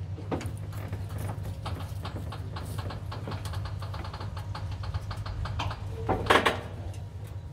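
Light, uneven clicking and knocking as a 1957 Willys jeep is pushed by hand and rolled along a wooden trailer deck, over a steady low hum. A short, louder sound comes about six seconds in.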